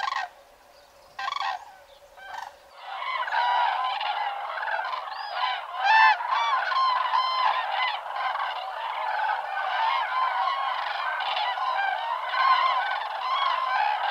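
Common cranes calling. A few single trumpeting calls come in the first couple of seconds, then from about three seconds in a large flock calls in a dense, continuous chorus of many overlapping calls.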